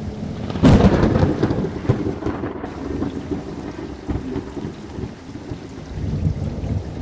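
Thunderstorm: steady rain with a sudden thunderclap about half a second in that rumbles and fades over the next couple of seconds.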